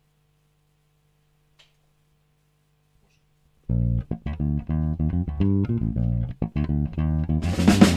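Electric bass and guitar start a funk groove together about four seconds in, after a near-silent pause with one faint click. Drums with cymbals come in near the end.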